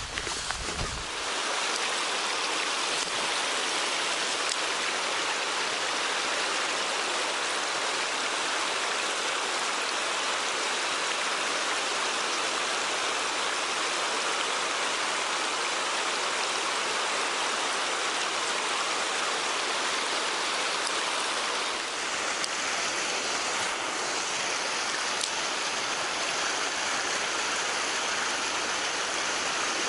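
Mountain stream water rushing over rocks: a steady, even rush, with a few low bumps in the first second.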